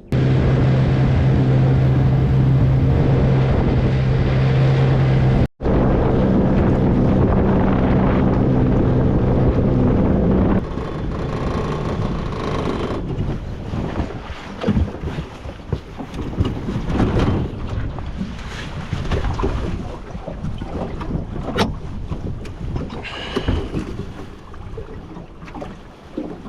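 Outboard motor running steadily at speed as the boat travels, with wind buffeting the microphone. About ten seconds in, the engine drone drops away, leaving choppy wind and water noise.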